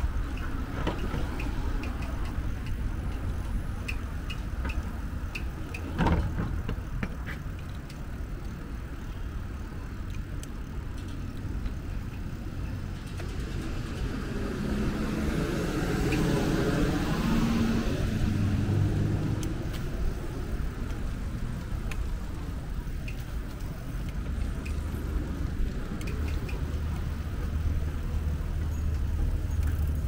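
Road traffic heard from a cycle path beside the road, over a steady low rumble; a motor vehicle passes, swelling and fading with an engine hum, between about 14 and 19 seconds in. A single sharp knock comes about six seconds in.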